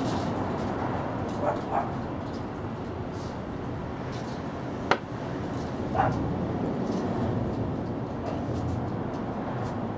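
Steady background noise with a few short animal calls: two close together about one and a half seconds in and one about six seconds in. A single sharp click sounds near the middle.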